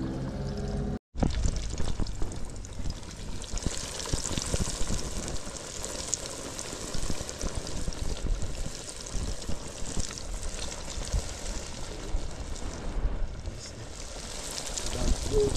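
Chicken pieces frying in hot oil: a steady crackling sizzle over a low rumble. The sound cuts out for a moment about a second in.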